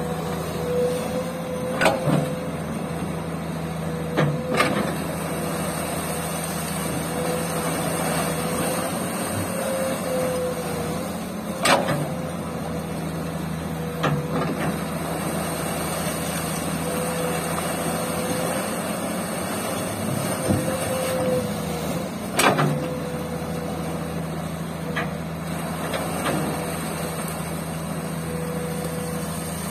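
Komatsu crawler excavator's diesel engine running steadily while it digs gravel from a riverbed, with about eight sharp knocks spread through as the bucket works among the stones.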